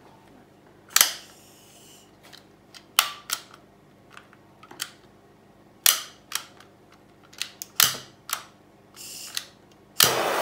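Handheld gas torch's igniter clicking about a dozen times, with a couple of short puffs of gas hiss, as it fails to catch. Near the end the torch lights and burns with a steady hiss.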